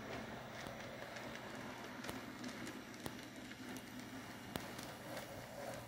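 An N gauge model diesel locomotive and its container wagons running on the track: a faint, steady whirr of the small motor and wheels, with a few sharp clicks.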